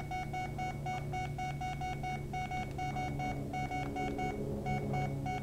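Samsung Zeal phone's keypad sounding a short electronic beep for each key pressed during fast thumb typing on its QWERTY keyboard, about five beeps a second with a few brief pauses. A steady low hum lies underneath.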